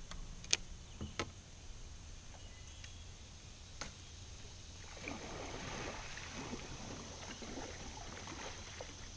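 Quiet water lapping and trickling against a drifting plastic kayak hull, with a few sharp clicks in the first four seconds.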